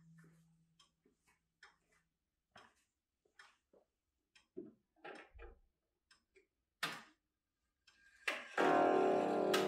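Pendulum clock ticking, with a hand-handling knock about halfway as the hands are turned. Near the end a loud strike rings out and hangs on, slowly fading, as the half hour is reached: the clock's gong striking.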